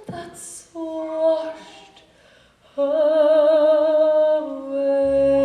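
A woman's solo voice singing slow, long-held notes with vibrato in a musical-theatre ballad, mostly unaccompanied, with a pause between phrases. A low sustained accompaniment comes in near the end.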